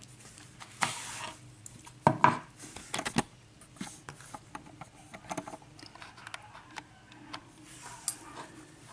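Handling clatter of a small brass lock cylinder and tools: scattered sharp clicks and knocks as they are set down and moved about on a tray, loudest about two seconds in, with light rubbing between.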